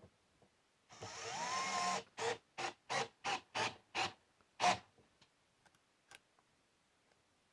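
Cordless drill runs for about a second with its pitch rising, then is triggered in seven short bursts, about three a second, snugging a threaded fitting tight.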